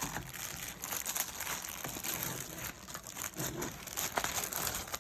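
Packaging crinkling and rustling with many small irregular crackles as it is handled and pulled open to take out a keyboard.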